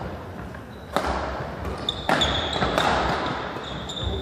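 Badminton rally on an indoor court: several sharp racket hits on the shuttlecock, with shoes squeaking briefly on the wooden floor and footfalls, in an echoing sports hall.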